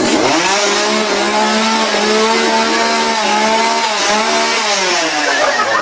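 Chainsaw engine revving up sharply and held at a steady high pitch, then winding down over the last second or so.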